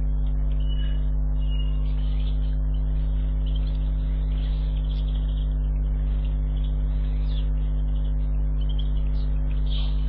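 Steady electrical mains hum on the garden camera's sound, a low drone with several fainter overtones above it, and a few faint, short high bird chirps scattered over the top.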